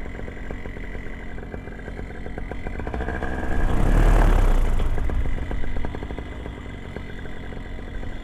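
Paramotor engine and propeller running steadily, swelling much louder for about two seconds midway before settling back.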